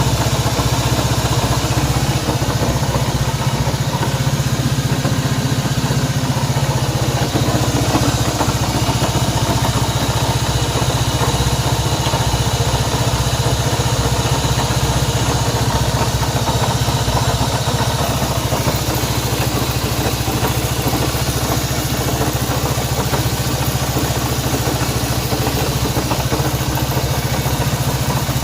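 Honda CB190R's single-cylinder engine idling steadily.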